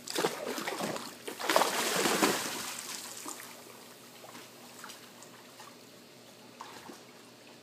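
A dog going into a swimming pool: two loud bursts of splashing in the first three seconds, the second the louder, then quieter sloshing and lapping water as it paddles away.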